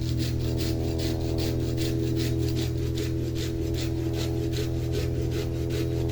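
Quick, even back-and-forth strokes of a hand tool on wood, about four a second, like sawing or rasping, over a steady low drone of sustained tones.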